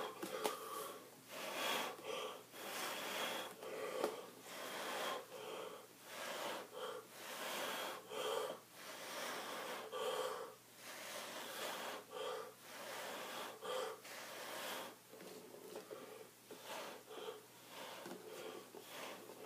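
A person blowing short puffs of breath by mouth onto wet acrylic paint close to the microphone, about one puff a second with breaths drawn in between, a little softer near the end. The blowing pushes the cell activator outward to open up cells in the paint.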